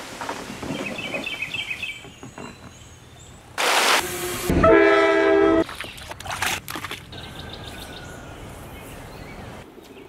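A string of separate outdoor sounds: light rustling, a short burst of noise, then a steady pitched blast about a second long. After it, a hooked fish splashes at the surface beside a kayak with several sharp slaps, over a steady outdoor hiss.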